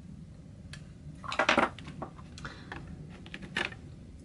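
Light clicks and clatter of small plastic makeup items being handled, with a louder quick cluster of clicks about a second and a half in.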